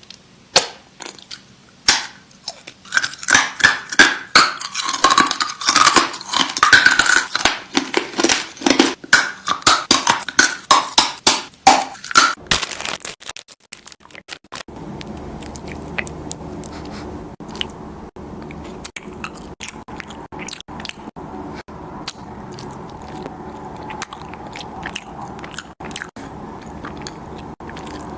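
Close-up crunchy chewing and biting, loud and rapid, for the first dozen seconds. From about fourteen seconds in, softer, sparser chewing over a steady background hum.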